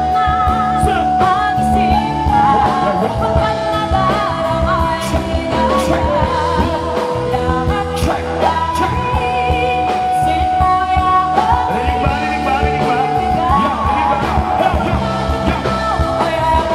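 Live band music with singing: long, wavering held vocal notes over a steady accompaniment with a regular beat.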